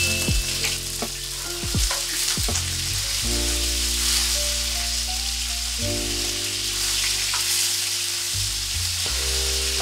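Steak sizzling in hot oil in a frying pan over high heat, a steady hiss. Background music with held chords plays under it, changing chord about a third and two thirds of the way through.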